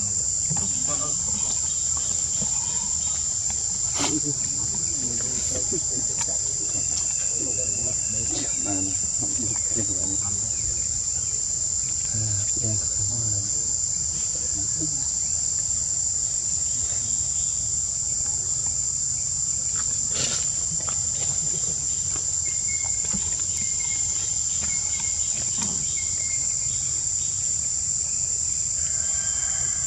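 Insects keeping up a steady, unbroken high-pitched drone, with a couple of faint knocks beneath it.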